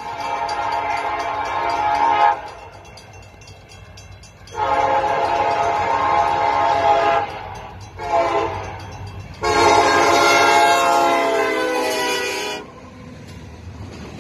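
Union Pacific diesel locomotive's multi-chime horn sounding two long blasts, one short and one long: the standard grade-crossing signal. The last blast is the loudest, and the low rumble of the train gets louder after the horn stops.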